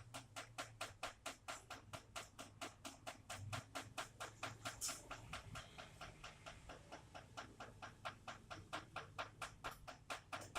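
Raindrops dripping in a steady, even rhythm, about four to five sharp drips a second.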